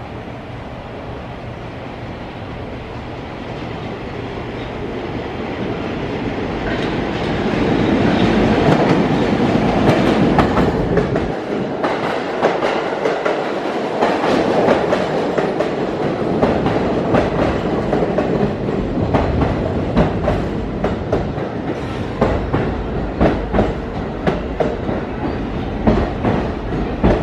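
R46 subway train approaching and running alongside the platform. Its rumble grows louder over the first several seconds. From then on the wheels clack over the rail joints at a steady rhythm of about two knocks a second.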